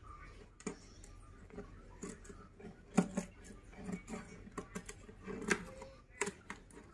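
A toddler's hands tapping and scraping at the bottom and sides of an empty kitchen drawer: irregular small clicks and knocks, the loudest about three seconds in and another just after five seconds.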